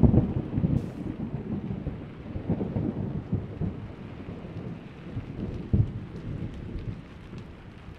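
Thunder rolling loudly at first and dying away over several seconds, with another short boom about six seconds in, over the steady hiss of rain.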